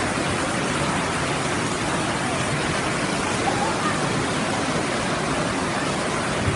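Floodwater rushing fast along a street, a steady, even roar of water.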